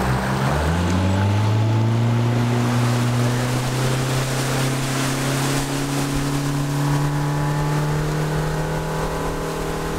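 Yamaha 70 hp outboard motor throttling up: its pitch climbs steadily over the first several seconds, then holds steady at cruising speed, over the hiss of water and wind rushing past the moving boat.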